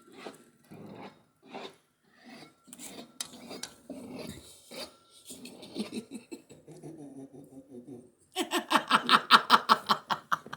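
A hand paint scraper rasping at soffit paint in short strokes, while a man makes a sputtering, motor-like noise with his mouth as he works. Near the end the mouth noise turns loud and rapid, about eight pulses a second.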